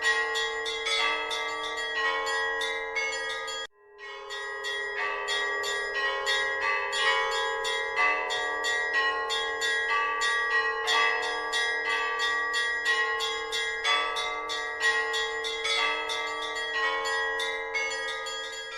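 A set of bells struck in quick succession, several strikes a second, the tones ringing on and overlapping. The ringing cuts out abruptly for a moment just before four seconds in, then resumes.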